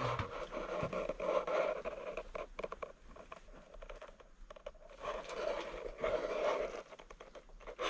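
Scraping and rustling handling noise with many small clicks, in two busier spells: one in the first two seconds and another about five to seven seconds in, most likely a torch and arm being worked through a hole in the brickwork.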